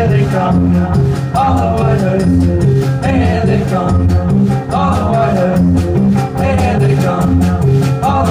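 Live band music: a drum kit played with sticks at a steady beat, electric guitar, and a low repeating bass line.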